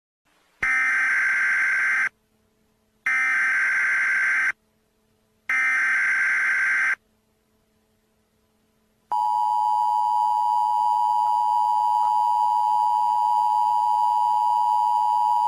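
Emergency Alert System tones: three buzzy SAME digital header bursts, each about a second and a half long with a second's gap between. After a pause of about two seconds, the steady two-tone EAS attention signal starts and holds, marking the start of a new emergency alert.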